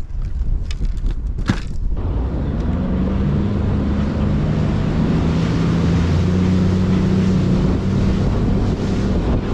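Bass boat's outboard motor running at a steady speed, its hum settling in about two seconds in, under heavy wind noise on the microphone. A few sharp knocks come in the first two seconds.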